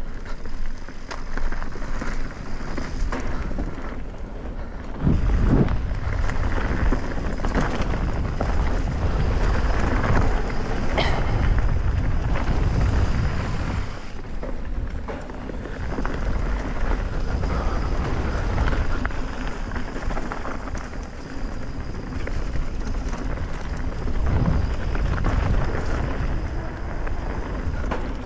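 Mountain bike rolling along a dirt flow trail: wind rumbling on the microphone over the hiss of the tyres, with occasional knocks from bumps, swelling and easing as the speed changes.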